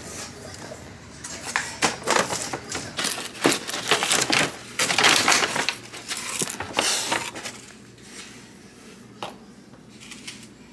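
A brown paper takeout bag and its packaging rustling and crinkling as the food is unpacked. There is irregular crackling for the first several seconds, then it goes quieter, with a single click near the end.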